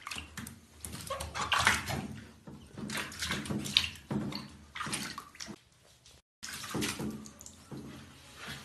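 Water splashing and sloshing in a bathtub as a beagle puppy is washed, hands rubbing its wet coat, in irregular bursts. The sound cuts out briefly about six seconds in.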